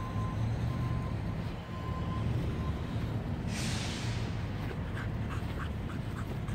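A dog panting in quick short breaths in the second half, after a single loud huff, over a steady low rumble.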